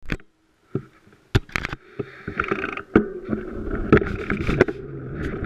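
Mountain bike riding a dirt trail covered in dry leaves: the knobby tyres rolling and the bike and camera mount rattling, with sharp knocks from bumps. It starts with a few isolated knocks and grows into a steady rolling rumble after about two seconds.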